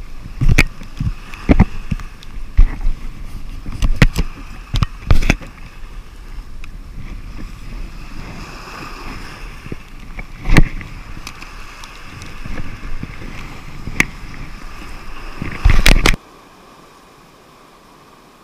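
Wind rumbling on a body-worn action camera's microphone over the rush of sea on rocks, broken by sharp knocks and rubbing as hands and jacket sleeve brush the camera while a landed sea bass is handled. About sixteen seconds in it all cuts off abruptly to a faint hiss.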